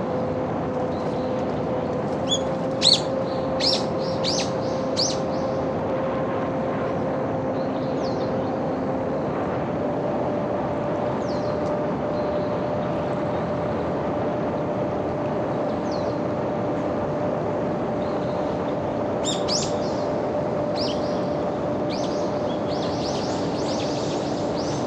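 Electric motor and propeller of a homemade radio-controlled airplane droning steadily in flight, its pitch stepping up slightly about ten seconds in. Birds chirp a few times, in a cluster near the start and again about twenty seconds in.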